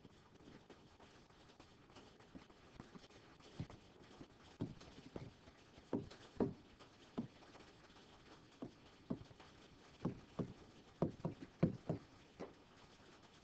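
A stylus tapping and knocking on a touchscreen while words are handwritten: light, irregular taps that come in quick clusters, busiest about six seconds in and again near the end.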